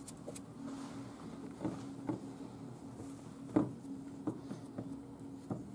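Soft pats and light taps as hands press and turn a stuffed beef cachopo in flour on a ceramic plate, about six small knocks with the strongest about three and a half seconds in, over a low steady hum.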